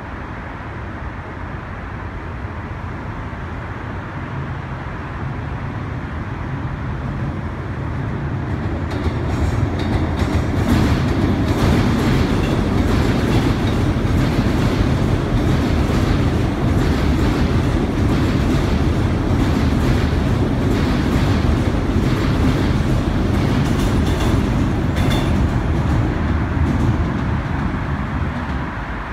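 Korail Seoul Subway Line 1 resistance-controlled electric multiple unit crossing the steel Hangang Railway Bridge. A low rumble builds over about ten seconds, then stays loud with rapid clicking of wheels over the rails, easing off just before the end.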